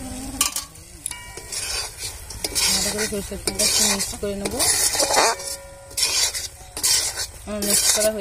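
Metal spatula scraping and stirring a thick spinach, dal and potato mixture around an aluminium kadai. Repeated scraping strokes come about once a second, several with a short squeak of metal on metal, over a light sizzle in the pan.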